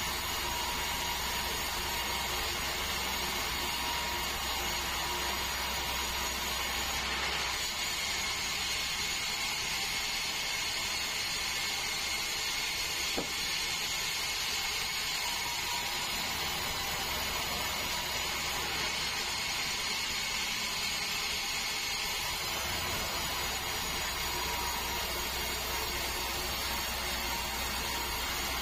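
Sawmill band saw running steadily, cutting a large meranti log: a continuous machine hiss with a steady whine, and one faint tick about halfway through.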